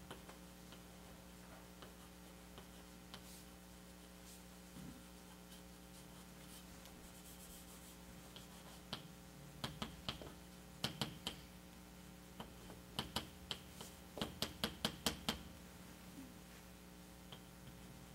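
Writing on a board during a lecture: scattered sharp taps and clicks, with quick runs of taps about halfway through and again near the end, over a steady low hum.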